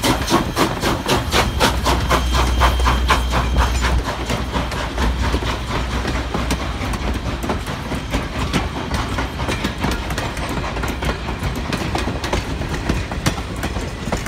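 Steam locomotive No. 89, a 2-6-0, passing close by with its exhaust beating rapidly and evenly over a low rumble. About four seconds in the beats give way to the passenger coaches rolling past, their wheels clicking irregularly over the rail joints.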